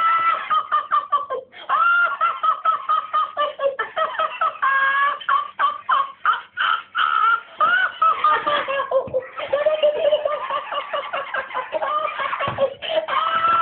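Motorised Elmo plush toy laughing in a high, squeaky electronic voice, in long runs of giggles broken by a few short pauses, as it rocks and topples over.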